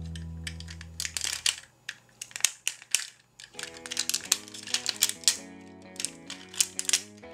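Plastic parts of a transforming robot-car toy clicking and snapping as they are twisted and folded by hand, a quick irregular run of clicks, over background music that drops out for a moment and comes back about halfway through.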